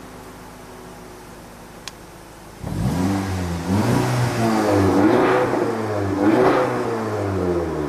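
Audi engine through a Fi Exhaust valved exhaust, idling quietly. About two and a half seconds in it turns sharply louder and is revved several times, the pitch rising and falling, with the exhaust valve open.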